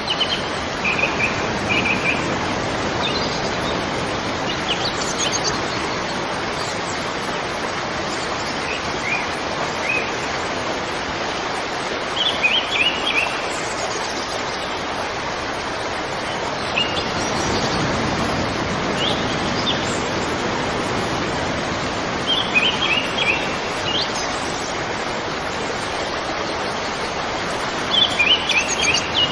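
Small birds chirping in short clusters of quick high notes every few seconds, over a steady rushing background noise.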